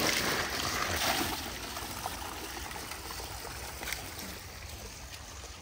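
Water gushing out of an outlet into a net full of caught fish, a steady rush that drops to a quieter, lower level after about a second and a half.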